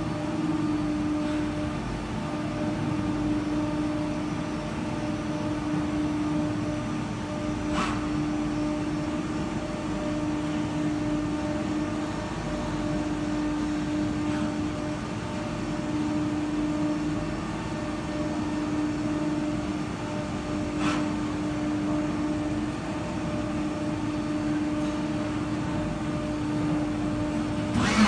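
SW BA 422 CNC horizontal machining center cutting a metal workpiece under flood coolant: a steady hum over the hiss of coolant spray. A faint tick comes every six or seven seconds, and there is a sharper knock near the end.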